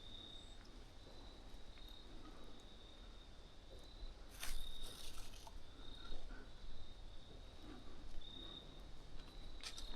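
Crickets chirring steadily in a high, pulsing trill. A brief brushing noise comes about four and a half seconds in, and a sharp click near the end.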